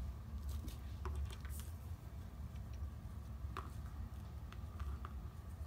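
Faint rustling and a few small clicks of hands handling faux fur and a soft tape measure on a cutting mat, over a low steady hum.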